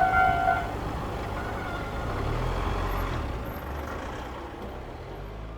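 Japanese level crossing's electronic warning alarm sounding and cutting off about half a second in, followed by the dying rumble of the passed train and a low, steady road-vehicle engine hum that fades toward the end.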